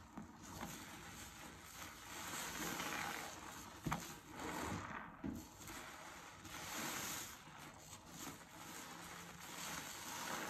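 A sudsy sponge squeezed and kneaded by hand over a sink full of soapy water: wet squelching of foam and water in slow swells, one squeeze after another, with a sharp click about four seconds in.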